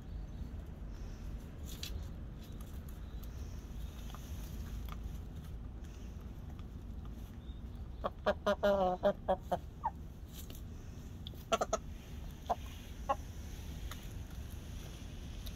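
Young cockerel letting out a sudden burst of loud calls, a quick run of short notes for about two seconds, then a few single short clucks a couple of seconds later.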